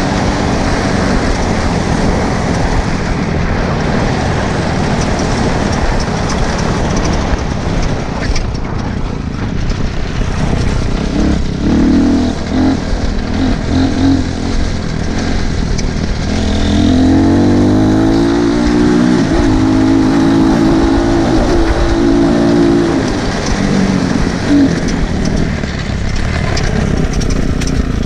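200 cc dirt bike engine being ridden, revving up and down as the rider works the throttle and gears. It rises past the middle to a loud, steady high-revving note held for several seconds, then drops back.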